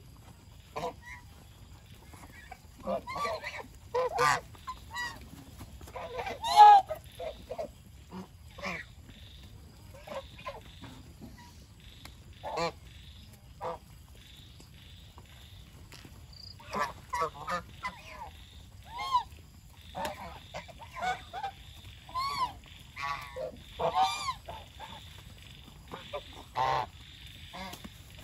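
A flock of domestic geese honking: many short calls at irregular intervals, the loudest about six seconds in, with a busier run of calls in the second half.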